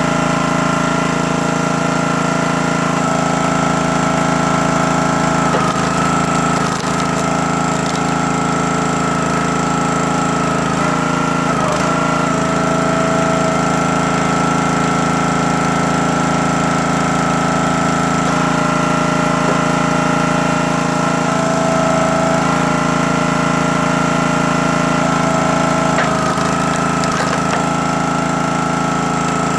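CountyLine 28-ton log splitter's small gas engine and hydraulic pump running steadily, with a steady whine over the engine hum. The pitch dips briefly a few times as the splitter takes load splitting logs.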